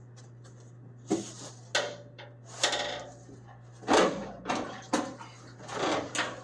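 Irregular clatter and knocks of metal parts and tools being handled and set down, some half a dozen sharp hits a second or so apart, over a steady low hum.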